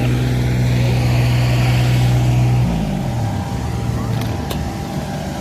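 Engine of road-paving machinery running steadily at a high idle, then its revs dropping away a little under three seconds in as the engine throttles down. Two short sharp clicks follow.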